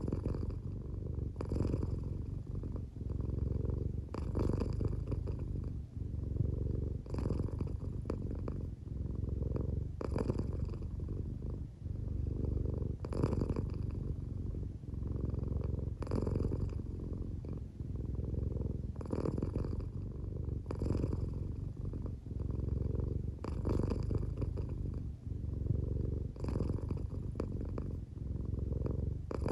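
A drowsy, half-asleep American Shorthair cat purring steadily up close, the purr swelling with a breath about every three seconds.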